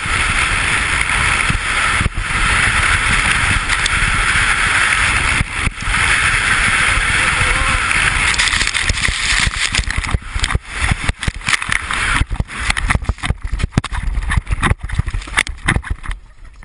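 A snow shovel sliding fast down packed snow, its blade hissing over the surface with wind rushing over the action camera's microphone. From about ten seconds in, the ride turns rough: a rapid, irregular run of knocks and thuds as the rider bounces and tumbles in the snow.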